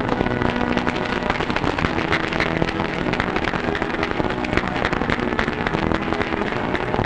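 Band music playing through the heavy crackle and hiss of an old film soundtrack, its held chords changing every couple of seconds.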